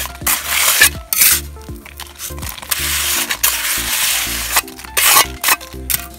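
Metal trowel scraping across damp, gritty concrete mix, levelling it off in a metal brick mould: several short rasping strokes and one longer scrape in the middle, over background music.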